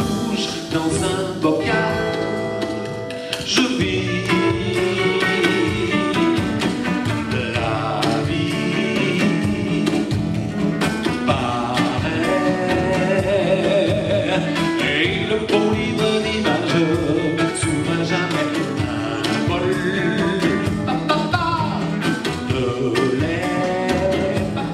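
Live band music: an acoustic guitar and a hollow-body guitar playing over a small drum kit.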